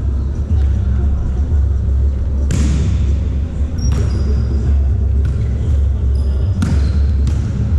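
Volleyball struck hard twice, about two and a half seconds in and again near the end, with a lighter hit in between, echoing in a sports hall. Short sneaker squeaks on the court floor and a steady low rumble underneath.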